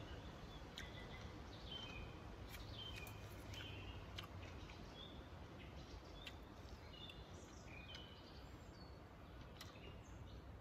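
Small birds calling faintly: short, high chirps and twitters repeating every second or so over a steady low rumble, with a few faint ticks.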